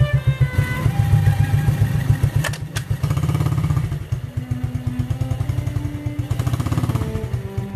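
Small engine of a 125 cc youth quad bike (ATV) running with uneven, rapid firing pulses, picking up briefly about three seconds in. A short clatter of clicks comes about two and a half seconds in.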